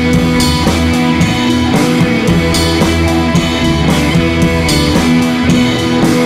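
Rock music with guitar and drums and a steady beat.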